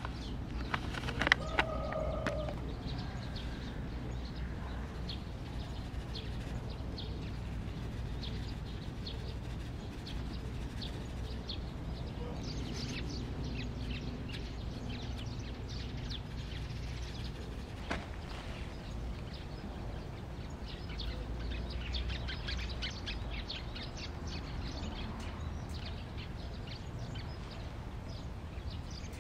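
Outdoor garden ambience: small birds chirping on and off over a steady low wind rumble, with a few sharp clicks about a second in.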